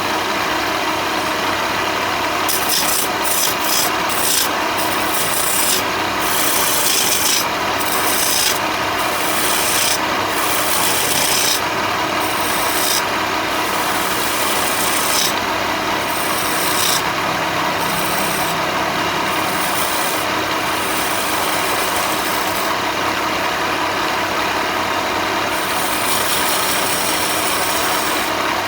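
Electric power tool abrading wood: a steady motor hum, with a grinding hiss that comes and goes irregularly every second or so as the abrasive is pressed onto the timber and eased off.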